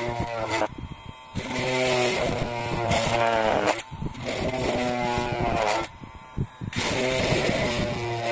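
Homemade DC-motor mini grinder running in three bursts of about one to two seconds each, with short pauses between them; its whine climbs in pitch during each burst as the disc spins up.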